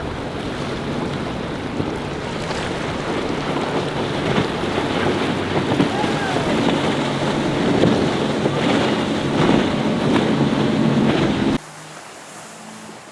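Boat running through rough inlet waves: heavy wind noise on the microphone and rushing, splashing water over a low engine hum, with several sharp splashes or thumps. Near the end it cuts suddenly to much quieter surf.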